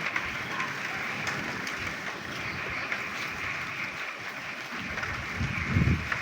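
Frogs croaking in the rain: a dense, steady chorus over the patter of rain, with a louder low sound about five and a half seconds in.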